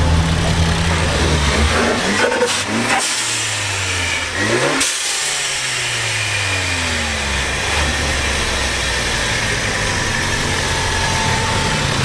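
Car engine running steadily, then revved twice in quick rising sweeps about three and four and a half seconds in, the revs then falling away slowly.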